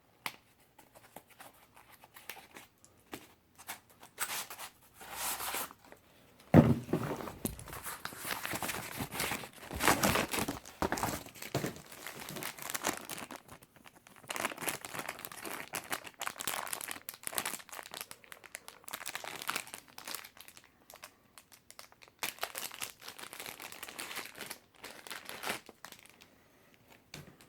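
Packaging crinkling and tearing in irregular bursts as a new wrench is unwrapped by hand, with a sharp jolt about six and a half seconds in.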